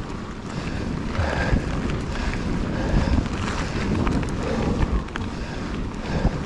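Wind buffeting the camera microphone over the rumble of a Trek Fuel EX 8 mountain bike's tyres rolling along a dirt forest trail, with frequent light clicks and rattles from the bike.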